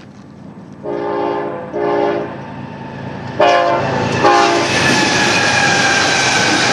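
An approaching BNSF freight train's locomotive sounds its multi-chime air horn in four separate blasts, each louder than the last. The locomotives then come up loud, their engines and wheels on the rail filling in as a heavy, steady rumble with a faint falling tone.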